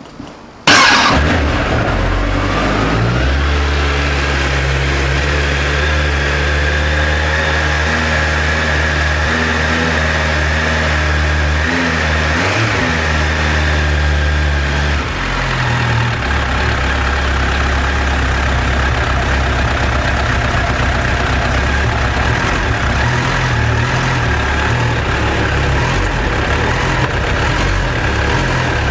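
Suzuki Bandit 1200 S inline-four motorcycle engine starting from cold just under a second in and idling steadily on the choke. About fifteen seconds in the choke is taken off and the idle note changes.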